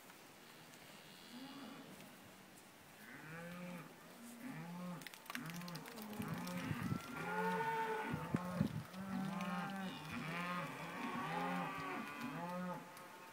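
Cattle calling in a rapid run of repeated moos and bellows, starting about three seconds in, building and then stopping shortly before the end. The herd is excited at a bull being turned out among the cows.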